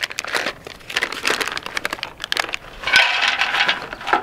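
MRE food pouch crinkling and crackling as it is torn open and handled, then nuts and raisins spilling out onto a stainless steel tray about three seconds in.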